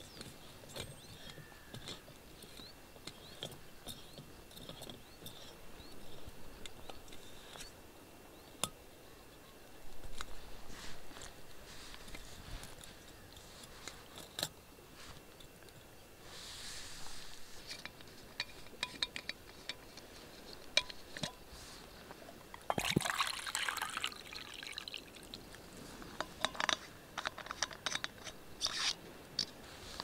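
Small metal clicks and knocks as a camping gas stove is screwed onto a propane canister and its pot supports are unfolded, with short rushes of noise about two-thirds of the way through as water is poured into a cooking pot.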